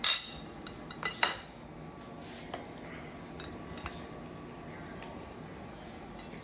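Metal fork clinking against a ceramic plate: one sharp clink at the start, two more just after a second in, then a few faint taps.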